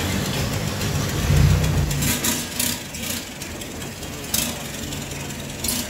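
Motorboat engine running, its low note swelling briefly about a second and a half in, with a few short high clicks or splashes over it.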